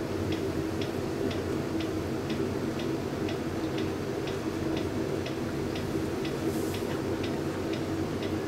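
Steady, even ticking, about two ticks a second, over a low steady hum.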